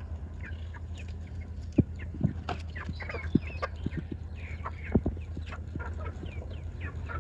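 Chickens clucking, with many short high calls and a few sharp knocks, over a steady low hum.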